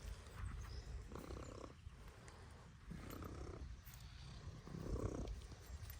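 Mini pig grunting softly, low rumbling grunts repeated about once a second.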